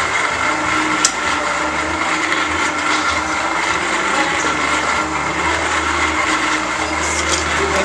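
A forge running with a steady whirring roar and a faint whine, and one sharp metallic click about a second in.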